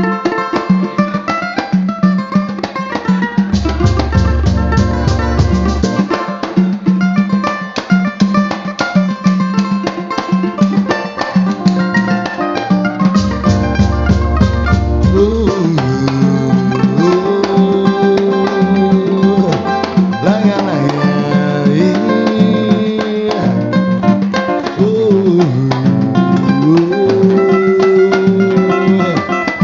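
Samba group playing: plucked strings strumming over a steady percussion rhythm, with deep bass notes twice in the first half and a melody line sliding between notes from about halfway on.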